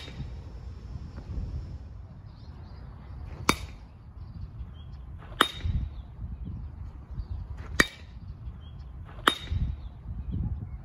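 Baseball bat hitting pitched balls during batting practice: five sharp cracks a second or two apart, several with a short ringing ping after the hit.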